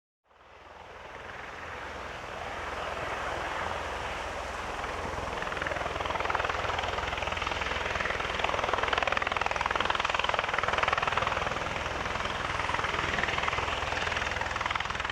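Single-engine Eurocopter EC130 helicopter running, its sound coming in just after the start and growing louder over the first several seconds, then holding steady with a low throb beneath.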